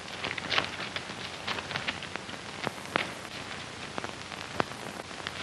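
Steady hiss of an old film soundtrack, with scattered faint clicks and crackles.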